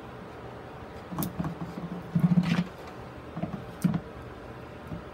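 Plastic grid mounting board being turned on a plastic box, a handful of irregular knocks and scrapes of plastic on plastic. The loudest cluster comes about two seconds in, with a sharp knock near four seconds.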